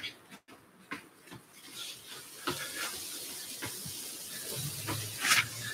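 Football being dragged and tapped with the sole and inside of the foot on artificial turf, a string of light, irregular knocks. A steady hiss joins in about halfway through, with a short louder burst near the end.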